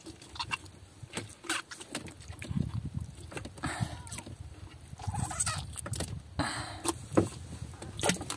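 Freshly caught squid and fishing tackle being handled in a small boat: scattered clicks and knocks with a few short noisy bursts, the sharpest knock about seven seconds in.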